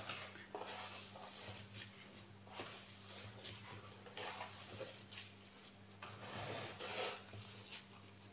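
Hands rubbing and pressing damp semolina against a wooden bowl: faint, irregular gritty rubbing strokes as water is worked into the grains for makrout dough. A steady low hum runs underneath.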